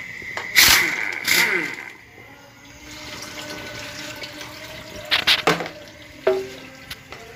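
Automatic transmission fluid pouring and splashing out from under a Daihatsu Xenia transmission's oil pan as the pan is pulled off, with several sharp metallic clanks of the pan and tools.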